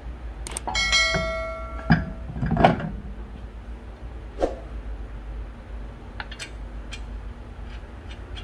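A metal clank that rings for about a second, then a sharp click, a duller knock and a few lighter clicks: metal parts being handled while a wheel is fitted back onto the car's hub.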